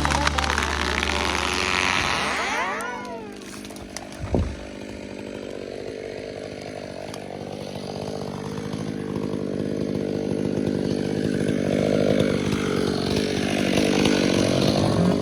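Chainsaw running under load, winding down with falling pitch about three seconds in, and a sharp knock a little after four seconds. It then runs again, growing louder and revving up and down near the end.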